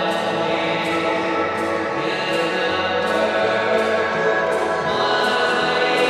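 Goal song music: sustained chords over a steady beat, the chord changing about every three seconds.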